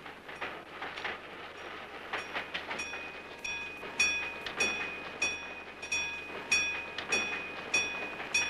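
Esslinger diesel railcar running along the track, its wheels clicking over the rail joints in an even rhythm of a little under two clicks a second, each click with a short ringing tone. The rhythm becomes clear about three seconds in.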